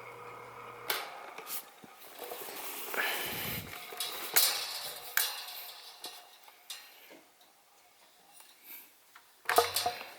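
Galaxy model 2150 oscillating table fan's electric motor humming steadily, then cutting off with a click about a second in. Several seconds of irregular clicks, knocks and light clatter follow, then it goes quiet.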